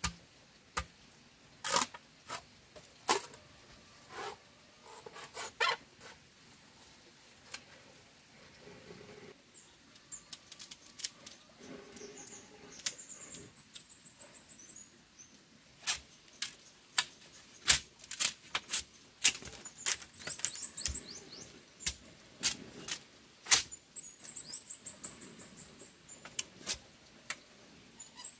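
Irregular sharp clicks and knocks, some close together and some seconds apart, with two short runs of quick, high chirps about halfway through and again near the end.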